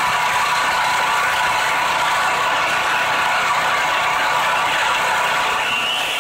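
Gas chainsaw idling steadily, then starting to rev with a rising pitch near the end.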